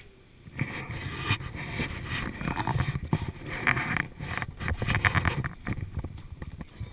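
Gusts of wind buffeting the microphone, a rumbling rush that rises about half a second in, swells unevenly, and eases near the end.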